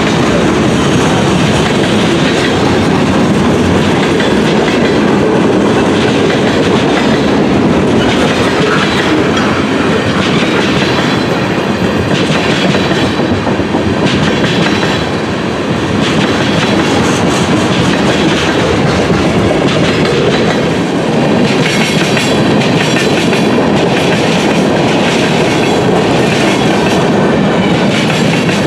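A freight train's cars (loaded lumber flatcars, then tank cars) rolling past close by, a steady rumble of steel wheels on rail. The wheels click over the rail joints, more distinctly in the second half.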